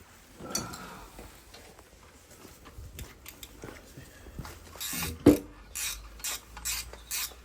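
Hand tools working on a motorcycle: scattered metal clicks and clinks, then from about five seconds in a regular rasping stroke about twice a second, with one loud knock just as the strokes begin.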